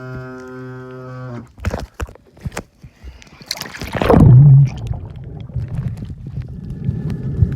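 A steady hum cuts off, a few knocks follow, then a loud splash about four seconds in as the camera goes into the water. After that comes muffled, low underwater rumbling and gurgling.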